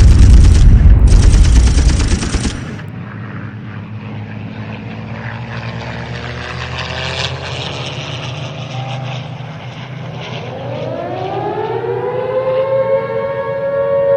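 Heavy rumble of bomb explosions that dies away about two and a half seconds in. A low steady drone with scattered crackle follows. From about ten seconds an air-raid siren winds up, rising in pitch and settling into a steady wail.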